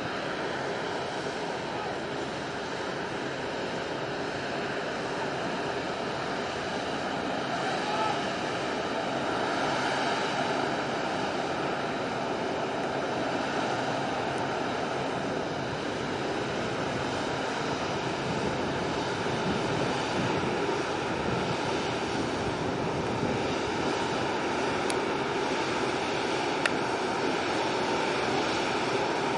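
Steady rumble and hiss of a large container ship passing close, its machinery and ventilation hum mixed with water washing along the hull and wind.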